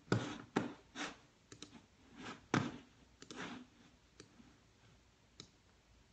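Scattered clicks and taps from a computer mouse and keyboard, irregular and closely spaced for the first three and a half seconds, then only a few.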